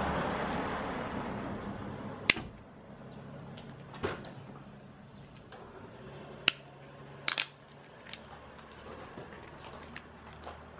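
Metal clicks and clinks as a Kryptonite Evolution U-lock, its steel cable and keys are handled with a tool on a tile floor: about six sharp clicks, several close together near the middle, over a rustling noise in the first two seconds.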